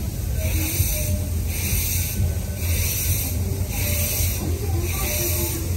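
Small coal-fired steam locomotive's exhaust chuffing about once a second as it runs slowly, over a steady low rumble of the train rolling on its track.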